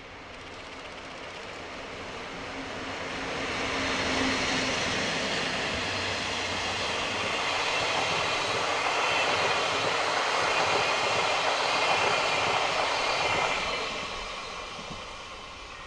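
DD51 diesel-hydraulic locomotive and its train of passenger coaches passing straight through a station. The sound grows louder as the locomotive approaches, then becomes a steady rush of the coaches' wheels on the rails, and fades from about fourteen seconds in as the last coach moves away.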